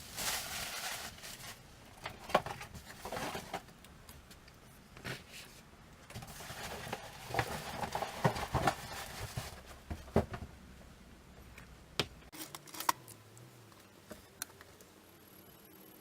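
Rifle parts being handled during AR-15 assembly: rustling and handling noise broken by several sharp metallic clicks and knocks.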